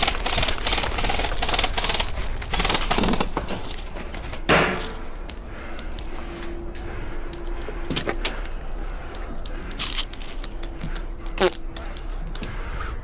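Hurried movement for the first few seconds, footsteps with gear rattling, as an airsoft player sprints to cover. Then come scattered sharp clicks and knocks, the loudest about four and a half seconds in, consistent with airsoft shots and BBs striking nearby.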